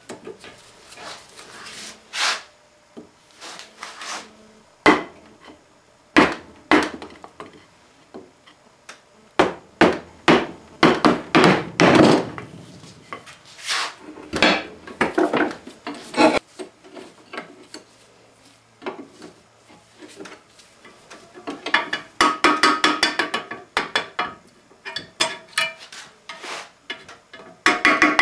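Hand-tool work on an Atlas 618 lathe: a screwdriver backing out screws, with irregular knocks and clinks of metal tools and small parts on the lathe and the wooden workbench, and a quick run of rattling clicks about two-thirds of the way through.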